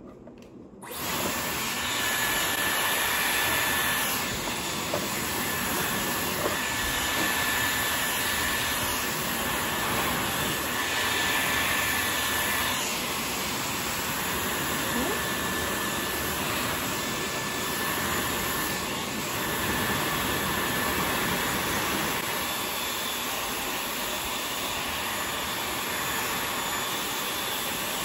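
Dyson Airwrap hair styler switched on about a second in, its motor blowing air through the curling barrel as a steady loud rush of air, with a faint high whine that comes and goes.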